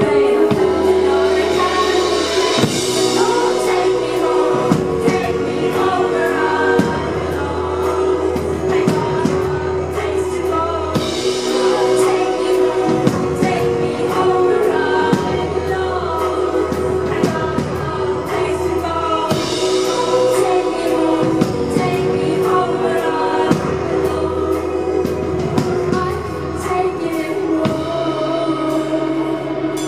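Live performance of a pop song: a woman's lead voice singing into a microphone over instrumental backing, with the bass note changing every few seconds.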